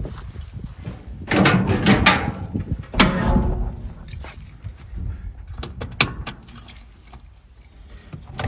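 An old pickup's cab door being opened with a rattling clatter that ends in a sharp knock, then keys jangling and a few sharp clicks as the ignition is tried. No engine cranking follows, a sign of a dead battery.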